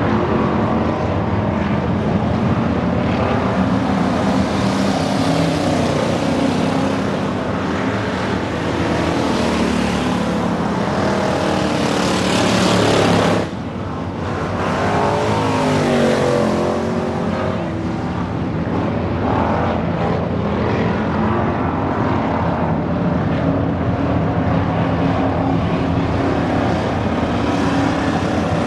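Several dirt-track race cars running laps in practice, their engines overlapping and rising and falling in pitch as they go through the turns and down the straights. The sound breaks off abruptly about halfway through and picks up again.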